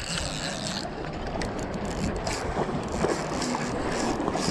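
Steady rush of river water with wind noise on the microphone, and scattered light ticks.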